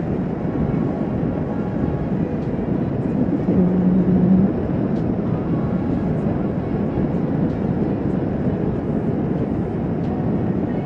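Kawasaki Vulcan S 650's parallel-twin engine running steadily at highway cruising speed, heard from the moving bike with road and wind noise. Its hum grows louder for about a second around four seconds in.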